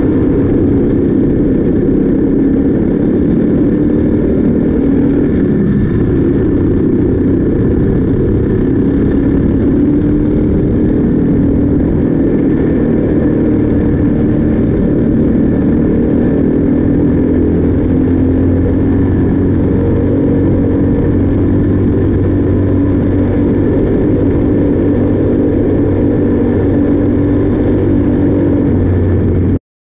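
Briggs & Stratton LO206 single-cylinder four-stroke kart engine running at racing speed, recorded from the kart's onboard camera. It runs steadily, with its pitch shifting gently through the corners, and cuts off suddenly at the very end.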